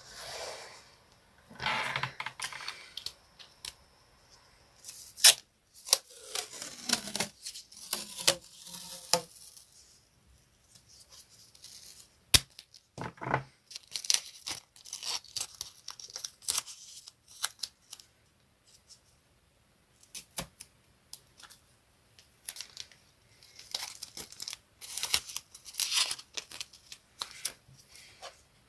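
Colouring on paper: scratchy strokes in irregular bursts separated by short pauses, with scattered sharp clicks.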